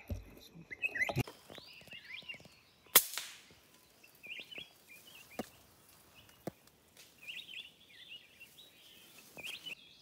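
A single sharp shot from a PCP air rifle about three seconds in, with small birds chirping in the trees before and after it.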